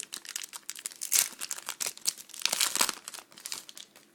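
A trading-card pack wrapper being torn open and crinkled by hand, in crackling bursts that die away near the end.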